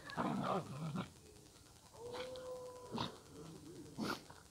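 Dogs growling and snarling in rough play, with a short held whining note about two seconds in.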